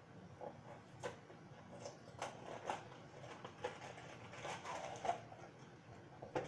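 Handling of a cardboard brownie-mix box and its paper-and-plastic mix pouch: crinkling and rustling with several sharp clicks, busiest from about two to five seconds in.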